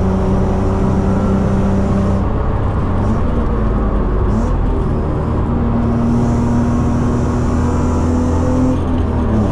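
BMW E36 323i's 2.5-litre straight-six running hard under load, heard from inside the cabin with road and wind noise. Its pitch holds steady, shifts two to four seconds in, then holds higher before dropping near the end.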